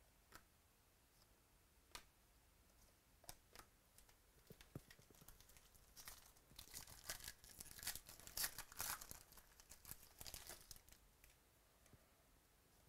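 A trading card pack's wrapper being torn open, crackling and crinkling for about five seconds from roughly six seconds in. Before it, a few soft clicks of cards being handled.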